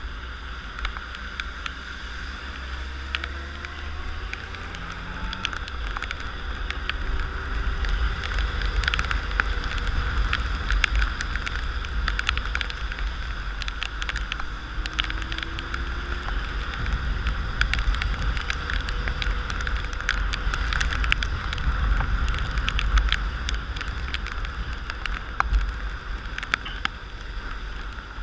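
Riding a motorcycle in the rain: steady wind rumble on the microphone, many sharp ticks of raindrops striking close by, and the engine faint underneath, rising in pitch as it pulls away. The rush grows louder over the first several seconds, then holds.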